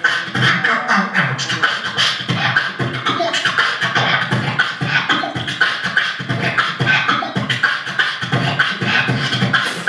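A man beatboxing: a fast, unbroken stream of mouth-made drum sounds, low kick-like thumps alternating with crisp snare and hi-hat clicks.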